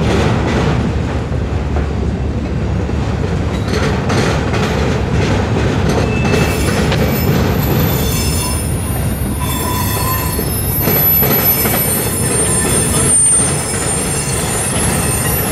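Freight train of autorack cars rolling past: a steady rumble of steel wheels on rail with scattered clacks. From about halfway through, thin high squeals join in as wheel flanges grind against the rail.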